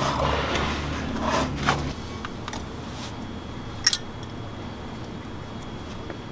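Metal scraping and light clinks of a brake caliper being worked over new pads on a Ford F450's front brake, with a sharp metallic clink about four seconds in. A low rumble runs under the scraping and fades about two seconds in.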